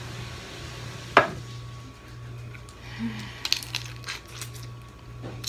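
Close-up eating sounds of steamed clams and blue crab: a sharp knock about a second in, then scattered light clicks of shell, over a steady low hum.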